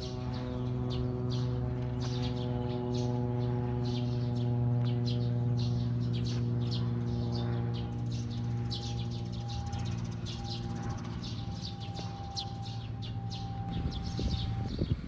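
A sustained, gong-like ringing drone of several steady tones, slowly fading, with a higher tone joining about halfway through; small birds chirp throughout.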